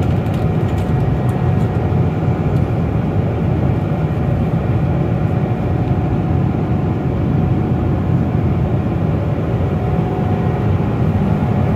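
Steady cabin roar of a Boeing 777-200 airliner in flight: the low rush of engines and airflow through the fuselage, with a faint steady whine above it.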